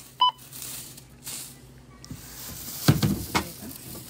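A self-checkout barcode scanner beeps once, briefly, as a drink can is scanned. Plastic shopping bags then rustle, and there are a few knocks about three seconds in as the can and other items are bagged.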